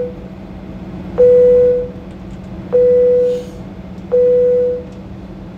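An electronic beep at one steady pitch, repeating about every second and a half, each beep lasting about half a second and tailing off, over a steady low hum.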